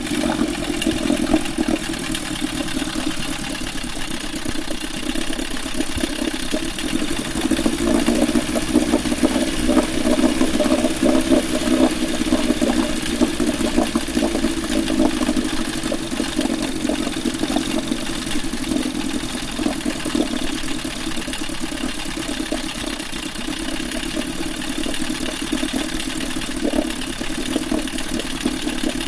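Veterok-8 two-stroke outboard motor running steadily with a knock, a little louder for several seconds near the middle.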